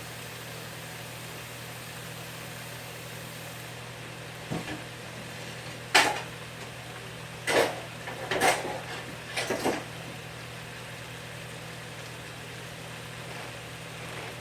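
Kitchen handling noise over a steady low hum: a hiss drops away about four seconds in, then a handful of sharp clanks and knocks of cookware, the loudest about six seconds in.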